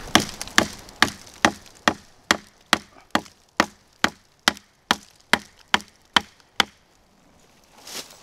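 Condor Woodlaw bushcraft knife chopping into the base of a standing sapling: about sixteen sharp, evenly spaced strikes into the wood, a little over two a second, stopping about two-thirds of the way through.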